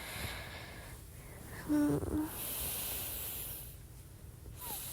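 A woman's short, closed-mouth voiced 'mm' about two seconds in, followed by a long breathy exhale, and a tiny rising vocal sound near the end.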